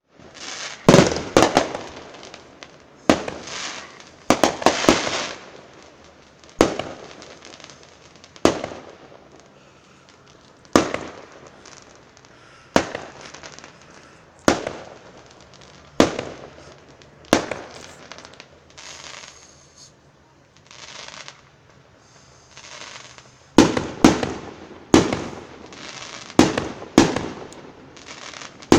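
Aerial fireworks going off: sharp bangs of bursting shells every second or two, several of them trailed by crackling. A quieter spell with a few softer hissing bursts comes past the middle, then a dense run of bangs and crackle near the end.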